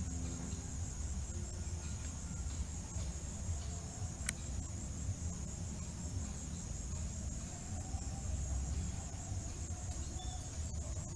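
Steady, high-pitched insect chorus of fine rapid pulses, over a low rumble, with a single sharp click about four seconds in.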